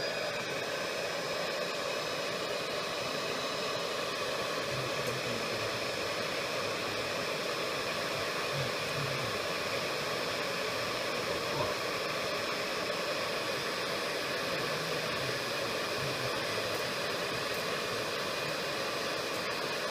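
Hot-air blower running steadily at full speed: an even rush of air with a faint steady motor whine, blowing hot air onto a heat-responsive model.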